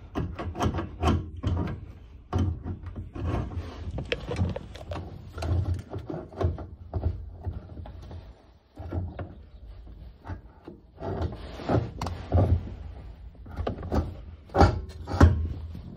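Irregular clicks, knocks and scrapes of the 1995 Honda Civic's fuel pump assembly being worked loose by hand and pulled out of the fuel tank opening at an angle.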